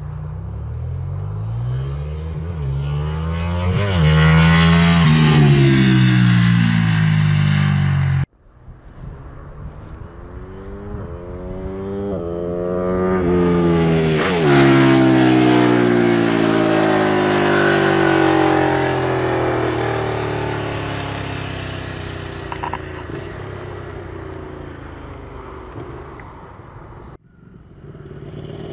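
Ducati 959 Panigale's Superquadro V-twin engine accelerating hard with rising revs as the bike approaches, the sound breaking off abruptly twice. In the middle it builds to a loud pass close by, the pitch dropping as it goes away and fades, and near the end a new approach begins to rise.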